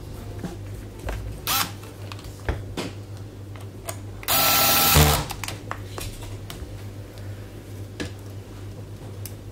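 A small power tool whirs once for under a second, about four seconds in, among scattered clicks and knocks of handling, over a low steady hum.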